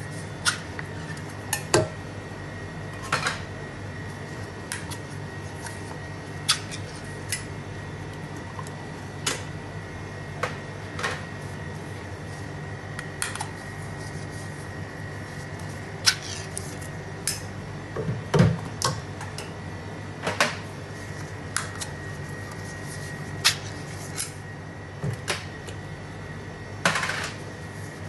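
Scattered clinks and knocks of metal cans and a plastic blender jug being handled and set down on a steel counter while ingredients are added, irregular and about one a second, with the loudest knock about two-thirds of the way through. Under them runs a steady hum with a faint high whine.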